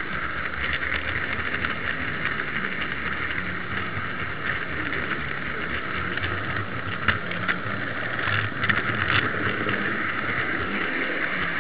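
Steady rolling rumble and hiss of an H0 model goods wagon running on its track, picked up by a miniature camera riding on the wagon, with scattered short clicks, several close together about two-thirds of the way through.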